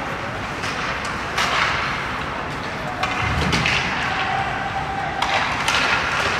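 Ice hockey play in an indoor rink: skate blades scraping the ice under a steady din, with several sharp stick-and-puck clacks, and low spectator chatter.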